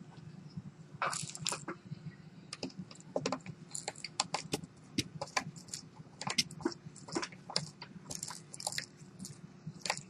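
Irregular light clicks and taps of a screwdriver and small plastic and metal parts being handled while a smartphone is taken apart.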